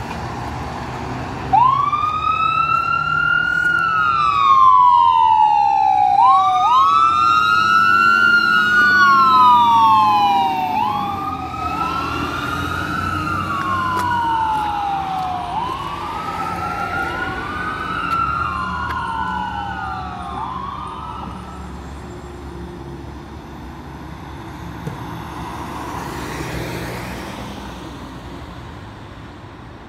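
Fire engine siren switching on about a second and a half in, then wailing in slow rising-and-falling sweeps, each about two and a half seconds long, that fade away as the truck drives off. The truck's engine runs low underneath.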